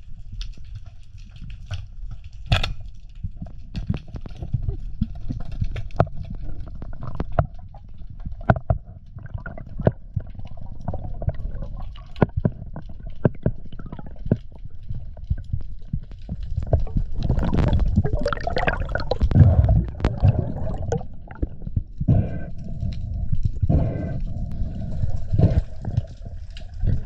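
Underwater sound from a spearfisher's camera: low churning water noise with many scattered sharp clicks and knocks, getting louder and busier for a few seconds past the middle.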